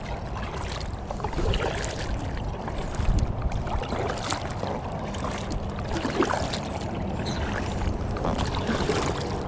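Double-bladed paddles dipping and splashing beside an inflatable tandem kayak, with wind rumbling on the microphone.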